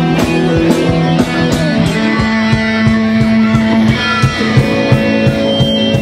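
Live rock band playing: electric guitars holding chords over a drum kit keeping a steady beat, with the chord changing about two seconds in.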